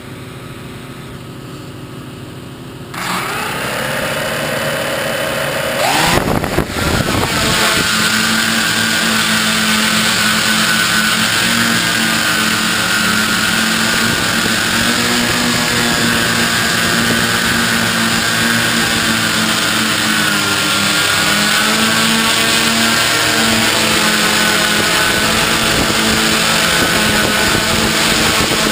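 Multirotor drone's electric motors spinning up about three seconds in and rising sharply in pitch as it lifts off, then a steady, slightly wavering propeller hum as it flies, heard close from the camera on the drone itself.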